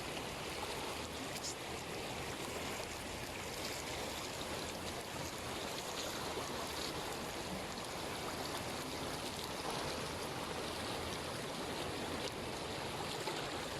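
Floodwater rushing past in a steady, unbroken wash of flowing water.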